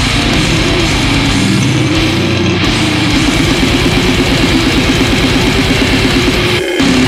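Death metal song with heavy distorted guitars and drums, with a red howler monkey's howl mixed over it. The music breaks briefly near the end.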